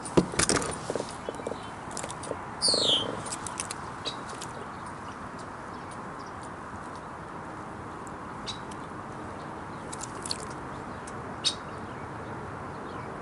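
Small clicks and knocks of fishing tackle being handled in a kayak while a hook is baited, over a steady outdoor background hiss. A cluster of louder knocks comes in the first second, and a short high squeak falls in pitch about three seconds in.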